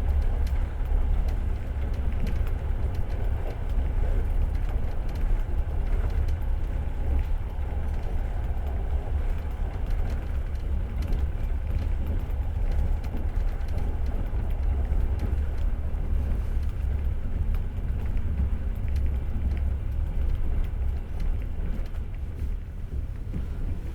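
Running noise of a moving passenger train heard from inside the carriage: a steady low rumble of the wheels on the rails.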